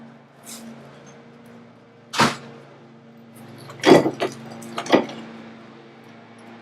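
Tools and parts knocking and clanking during reassembly of a car's front wheel hub: a sharp knock about two seconds in, a quick cluster of clanks around four seconds, and another knock about five seconds in, over a steady low hum.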